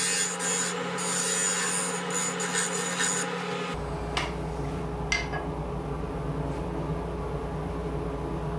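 Parting tool cutting into a wooden blank spinning on a wood lathe, a harsh steady scraping as the recess for a slate insert is widened, which stops about three and a half seconds in. A steady hum carries on after it, with a couple of light clicks.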